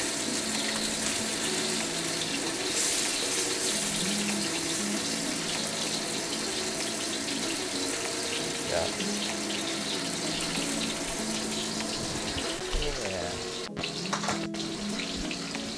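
Ground-pork meatballs searing in hot oil in a wok: a steady sizzle as they brown. Soft lo-fi background music with shifting bass notes plays under it.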